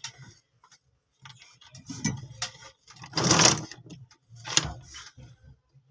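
Irregular clicks and scrapes of hand work on a phone charging cable and its connector, with a louder scrape lasting about half a second a little after three seconds in.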